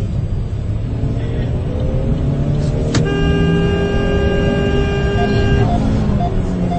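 A car horn sounding one steady blast of about two and a half seconds, starting with a click about halfway through, over the constant rumble of a moving car's engine and road noise.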